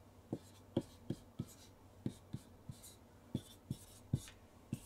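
Marker pen writing numbers on a whiteboard: about a dozen short, irregular taps and scratches as each digit is stroked onto the board.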